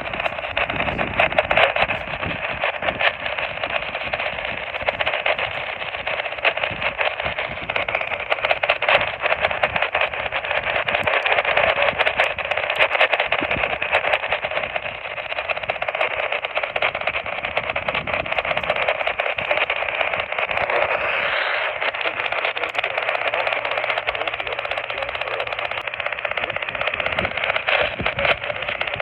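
Radio static from a receiver on a weak or empty signal: a steady hiss held within a narrow band, with crackle running through it. A low hum comes in about three quarters of the way through.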